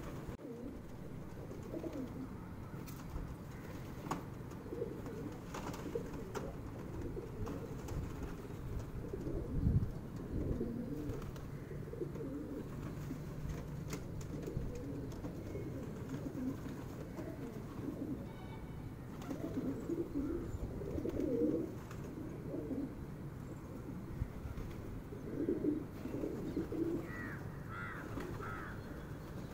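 A flock of feral rock pigeons cooing, low warbling calls overlapping one another, with louder bouts about two-thirds of the way through and again near the end.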